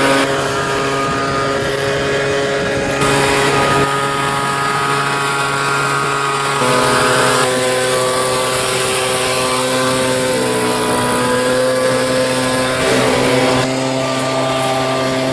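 An engine running steadily, its pitch stepping to a new level a few times and wavering briefly about ten seconds in.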